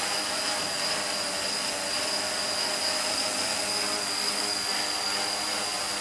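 Homemade quadcopter's four brushless motors and propellers running at hover: a steady whir with a constant high-pitched whine and a lower hum that wavers slightly.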